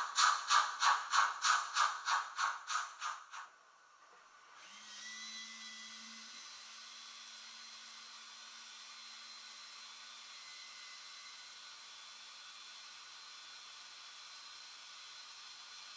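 Sound decoder of a Märklin H0 model steam locomotive chuffing at about four beats a second, fading away after about three seconds. From about five seconds in comes a steady faint hiss, with a low hum for the first few seconds.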